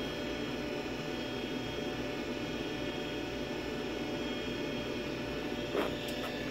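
Steady whir of a Gateway 2000 386/33 desktop PC's cooling fan running with the case open, with a light tap near the end.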